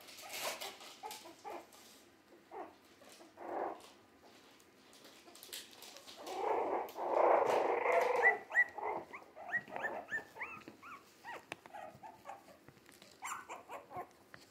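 Three-week-old Jack Russell terrier mix puppies whimpering and squabbling: a louder rough stretch of growly scuffling about halfway through, then a run of short, high squeaks and yips.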